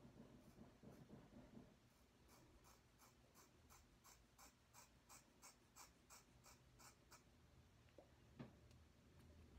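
Faint, quick snips of small scissors cutting at the ends of a lock of hair, about three a second for several seconds, followed by a single soft knock near the end.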